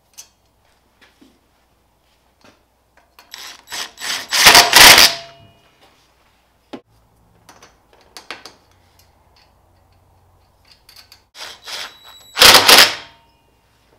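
A socket tool tightening the cable terminal nuts on a winch motor's studs. It makes two loud bursts of rapid clicking, each under two seconds long: one about four seconds in and one near the end. Small knocks and handling noises come between them.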